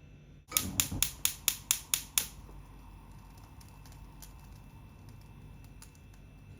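A quick run of about eight sharp clicks, roughly five a second, then a few faint ticks.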